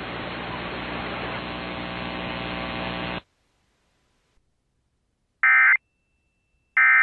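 Weather-radio receiver static: a steady hiss with a low hum that cuts off abruptly about three seconds in. After a short silence come two identical short warbling data bursts about a second and a half apart, the second near the end: the start of an Emergency Alert System SAME header.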